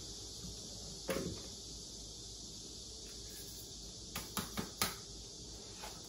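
Kitchen items being handled on a counter over a steady hiss: one knock about a second in, then a quick run of four light clicks and knocks about four seconds in.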